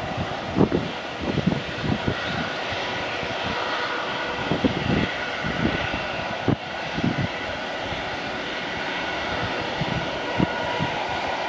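Boeing 747-400 climbing out after take-off, its four turbofan engines making a steady, distant rushing drone. Irregular low thumps sound under it throughout.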